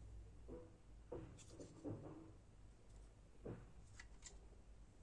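Faint handling noises: a few light rubs and small clicks, as of a goggle housing and circuit board being turned over by hand, over a low steady hum.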